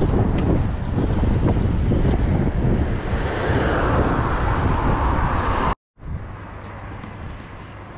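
Wind buffeting the microphone while riding a bicycle, a loud low rumble. It cuts off abruptly a little before six seconds in, and a much quieter outdoor background follows.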